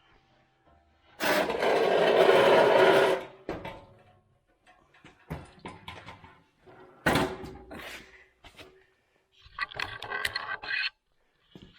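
Table saw motor switched on, running for about two seconds with the newly fitted blade, then switched off and winding down. This is followed by a few knocks and a short buzzing rattle.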